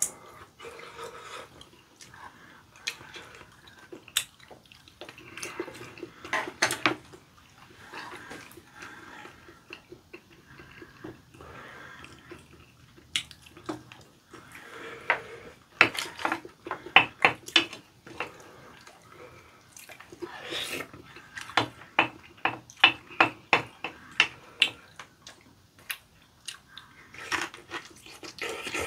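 Mouth sounds of two people eating curry rice and kimchi: chewing, slurping and smacking, mixed with the clicks of wooden spoons and chopsticks against ceramic bowls. The sounds come irregularly, with quick runs of clicks and slurps about midway and again a little later.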